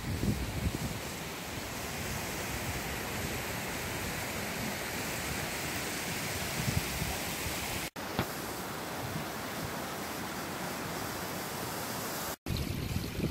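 Mountain stream and waterfall rushing, a steady hiss of water, with wind buffeting the microphone near the start and again near the end. The sound cuts out for an instant twice, at about eight seconds and near the end.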